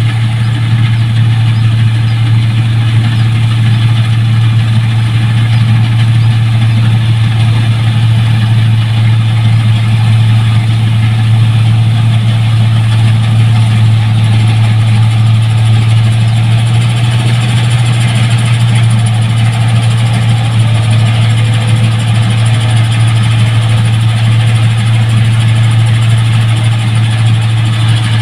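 New Holland 1545 rice combine harvester running steadily, its engine holding a constant low hum under a hiss of machinery noise.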